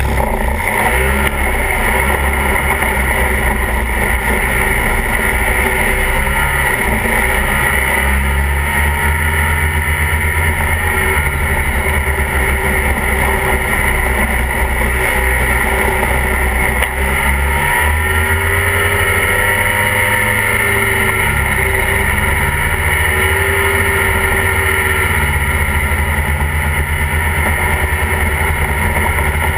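Snowmobile engine running steadily under way on the trail, with a few slight dips and rises in pitch past the middle.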